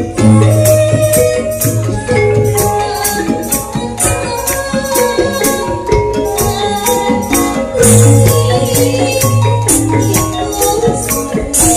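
A full Javanese gamelan ensemble playing loudly, its thick-keyed saron metallophones and bonang kettle gongs struck hard in a quick steady beat, with deep low strokes of the gong and drums now and then.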